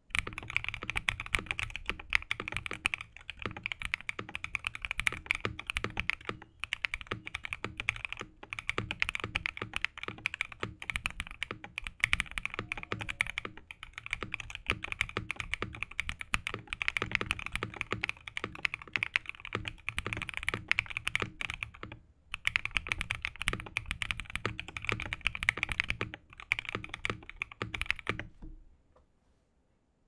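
Fast, continuous typing on a modded, gasket-mounted Freebird 60 mechanical keyboard with stock Prevail Epsilon linear switches, an FR4 plate and Japanese BOW keycaps: dense rapid key clacks, with a brief pause about 22 seconds in, stopping shortly before the end.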